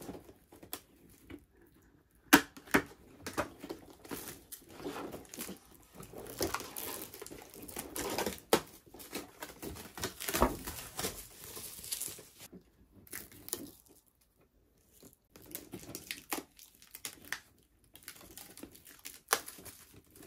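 Close handling of a boxed Funko Pop in a clear plastic protector: plastic film crinkling and tearing, and scattered clicks and taps of the plastic case, the loudest a sharp tap about two seconds in.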